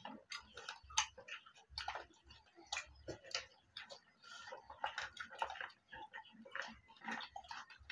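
Close-up eating noises of people eating rice and chicken curry by hand: unevenly spaced clicks and smacks from chewing mouths and fingers working rice on foil plates.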